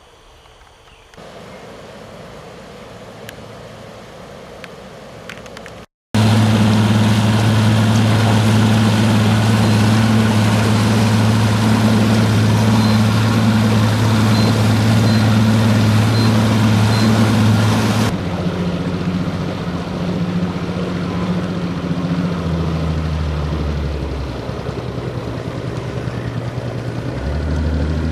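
Boat motor running steadily at speed with a strong low hum, then throttled back about two-thirds of the way through, its pitch dropping further a few seconds later.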